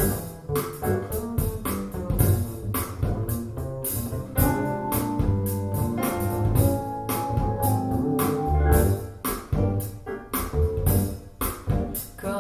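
Instrumental music with a steady drum beat and bass line, played back through a pair of Bowers & Wilkins 707 S2 bookshelf speakers.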